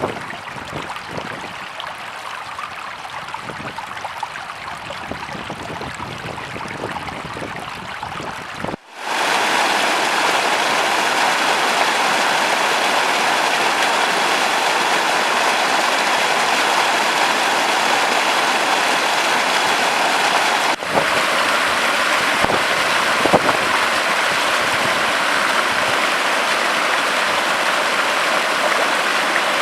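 Spring meltwater rushing in a stream: a steady wash of water that cuts, about nine seconds in, to a louder, fuller rush.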